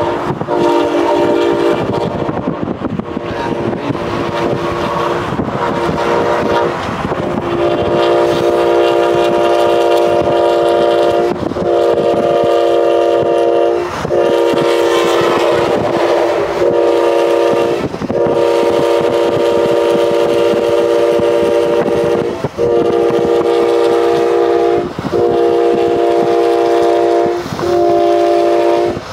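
Train air horn sounding a steady chord in long blasts, broken by short gaps every few seconds, over the rumble of the moving train.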